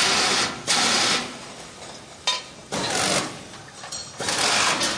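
Handheld pneumatic fastening tool driving bolts in four short bursts of about half a second each, with a sharp click in between.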